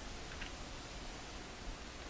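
Quiet steady hiss of room tone and microphone noise, with one faint short tick about half a second in.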